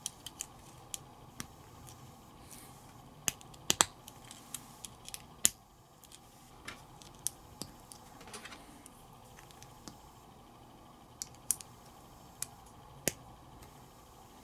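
Small plastic building bricks being handled and pressed together: irregular sharp clicks and taps, with a cluster of louder snaps about four seconds in and another shortly after.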